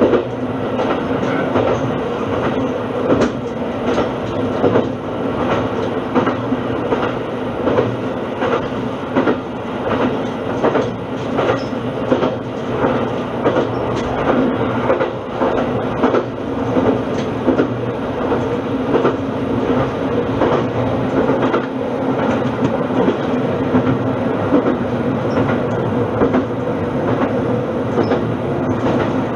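Shimabara Railway diesel railcar running along the line, heard from inside the car: a steady engine drone with the clickety-clack of the wheels over the rail joints.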